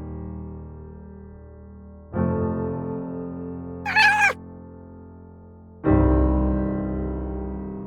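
Slow piano music: sustained chords struck about 2 s in and again near 6 s, each left to ring and fade. About 4 s in, a single short cat meow sounds over the piano.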